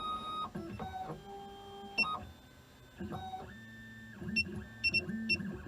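Automatic key cutting machine decoding the original key blade: its stepper motors whine at steady pitches that jump from one to another as the carriage moves, with clicks and short high ticks between moves.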